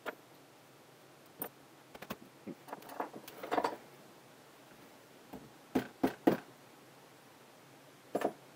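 Scattered clicks and knocks of a metal vacuum pump housing being handled and turned onto its side in a metal tray, with three knocks in quick succession about six seconds in.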